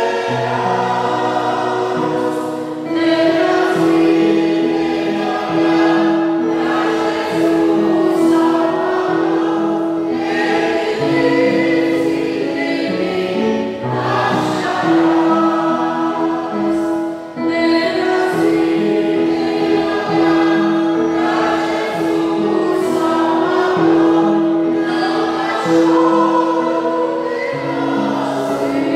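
Gospel choir music: many voices singing long, held chords.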